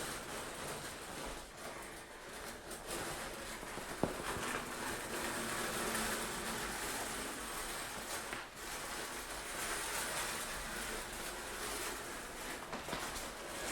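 Shower curtain pulled along its rod again and again: a run of noisy swishes that swell and fade, with a sharp click about four seconds in.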